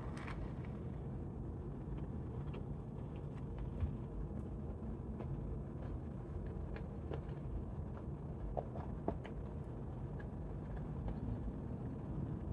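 Quiet chewing: faint small clicks and crunches over a steady low rumble.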